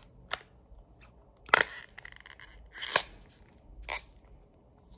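A phone case being pressed and snapped onto an iPhone 14 Pro Max: four sharp clicks about a second apart, the loudest about a second and a half in, followed by a short scraping rub as the case is worked over the edges.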